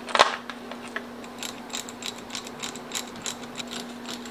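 Socket ratchet clicking in quick, regular strokes while it tightens the car battery's terminal clamp nut, after a sharp clack as the socket goes onto the nut near the start.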